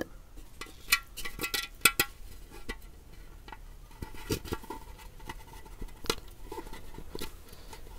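Light scattered metallic clinks and taps as a small rolled aluminium plug is fitted into a hole in an aluminium pan's base. The taps come thickest in the first couple of seconds, with a few more later.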